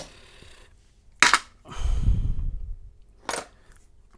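Sharp metallic clicks and clacks of a Master Lock 930 padlock being handled and taken apart, four distinct snaps with the loudest about a second in, and a low rumble of handling noise between them.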